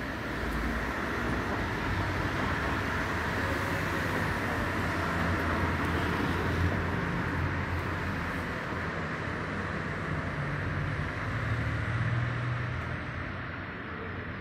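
Steady outdoor background rumble and hiss, like road traffic, swelling through the middle and easing off near the end.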